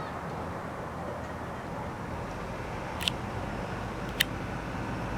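Steady low background noise, with two short, sharp high clicks about a second apart near the end.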